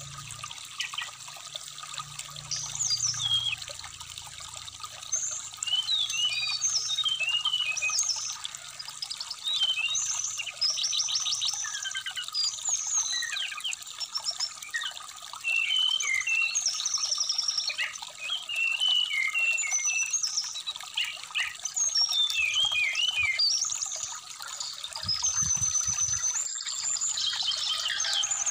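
Brown-chested jungle flycatcher (SRDC) singing a long, busy run of short, varied chirps and quick trills over the steady trickle of a shallow stream.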